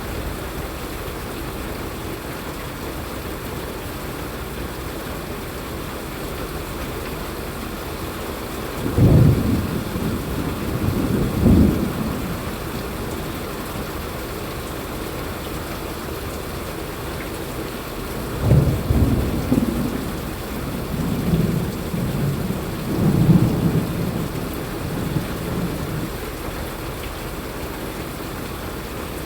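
Steady rain falling, with two rolls of low thunder rumbling through it: a shorter one about nine seconds in and a longer, uneven one starting about halfway through and lasting several seconds.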